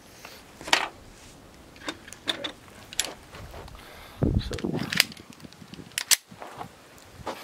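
Metallic clicks and clacks of a 9 mm pistol being loaded and readied by hand, with a sharp double clack near the end as the slide is racked and snaps forward to chamber a round. A duller thump and rustle of handling comes in the middle.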